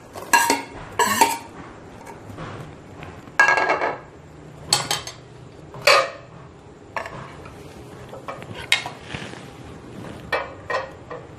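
A metal spoon scraping and knocking against a ceramic plate and the rim of an aluminium cooking pot as pounded fish is scraped into boiling broth. There are about eight sharp clinks and clatters, spread unevenly, the loudest near the start and around the middle.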